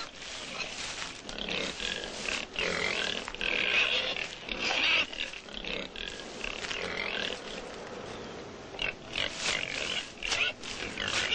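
An inobuta, a wild boar and domestic pig cross, giving repeated high squeals and grunts, with a run of short sharp calls near the end.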